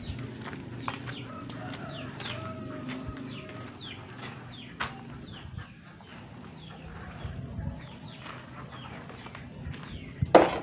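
Birds chirping over and over in short descending calls, with footsteps scuffing on dirt and gravel. Near the end a hoe blade knocks sharply against the ground.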